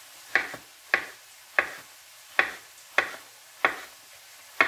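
Kitchen knife chopping zucchini into cubes on a wooden cutting board: about eight sharp knocks of the blade striking the board, unevenly spaced, most well under a second apart.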